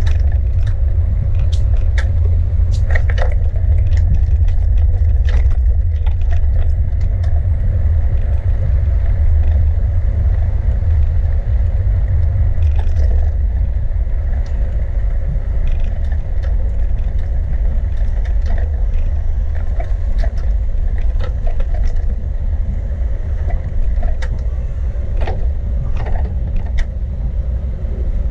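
Steady low wind rumble on the microphone of a camera riding on a moving bicycle, with scattered clicks and rattles from the bike over the road surface.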